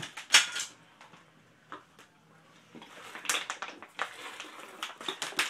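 A string of sharp taps and clicks, with one loud crack about a third of a second in and a quicker run of taps in the second half.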